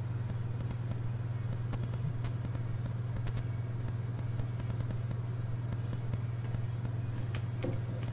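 Steady low background hum, with a few faint clicks.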